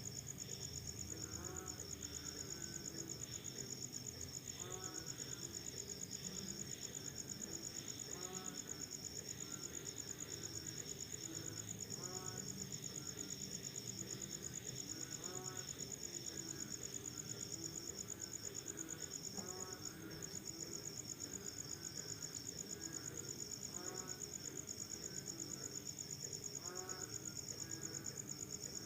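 Night chorus after rain: crickets trill in a continuous, fast-pulsing high drone, while frogs call repeatedly underneath with short rising-and-falling notes every second or two.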